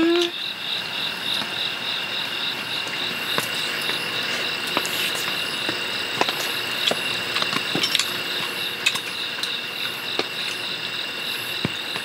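Crickets chirping steadily in a high, fast-pulsing trill, with scattered light clicks and taps throughout.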